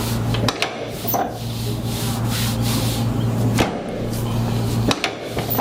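Hands rubbing and pressing over a patient's back on a chiropractic table, with a few sharp knocks about half a second in, near three and a half seconds and near five seconds, over a steady low electric hum that breaks off briefly at each knock.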